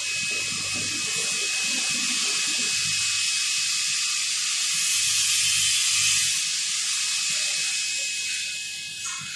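CO2 laser cutter cutting an acrylic sheet: a steady airy hiss with a thin high whine running through it, easing a little near the end.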